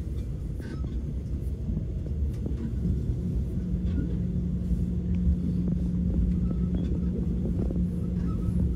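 Steady low rumble of a moving vehicle heard from inside, with a steady hum that comes in about three and a half seconds in.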